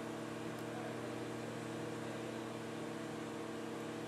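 Steady machine hum: several low tones held over a constant hiss.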